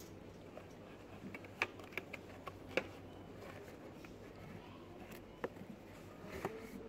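Scattered light clicks and knocks as cartons are handled and lifted out of a cardboard shelf display, over a low steady hum.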